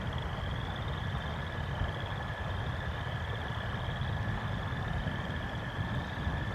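Frogs calling at night: one steady, unbroken trill, with other pulsed trills repeating about once a second, over a steady low rumble.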